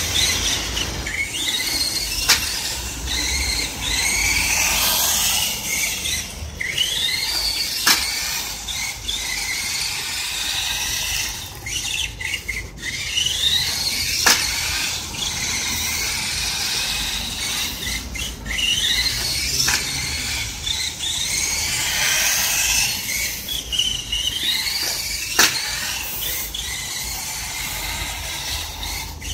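KD Summit S600 RC monster truck's motor whining, rising and falling in pitch again and again as it speeds up and slows down. Sharp knocks stand out about every five to six seconds.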